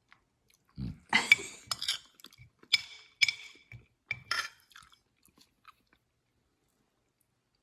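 A spoon scraping and clinking against a dish to scoop up the last of the pasta, in several short strokes over a few seconds, some with a brief ringing tone.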